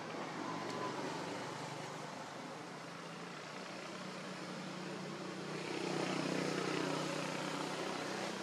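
A motor vehicle engine running steadily, growing louder around six seconds in.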